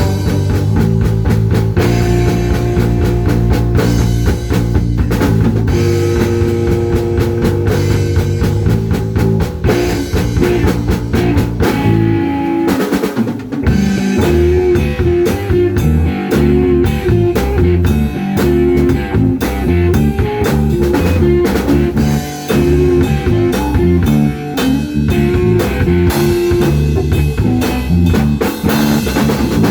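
Instrumental rock music without vocals: drum kit, guitar and bass playing a steady beat, with a short break about twelve seconds in before the band comes back in.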